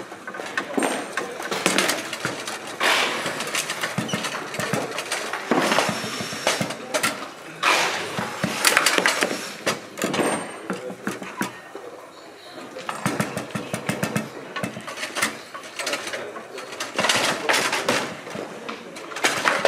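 Bonzini table-football game in play: an irregular run of sharp clacks and knocks as the figures strike the ball, the ball hits the table's sides and the rods bump and rattle.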